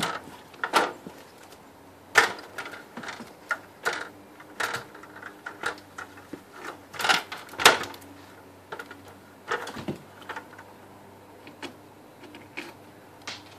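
Irregular knocks, clicks and clatter of framing lumber and a stepladder being handled while a board is fitted overhead, the loudest knocks about two seconds in and a pair about seven seconds in.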